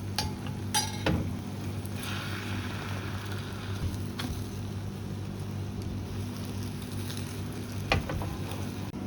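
Tamagoyaki egg mixture sizzling in a pan, with a few sharp taps of a utensil against the pan over a steady low hum.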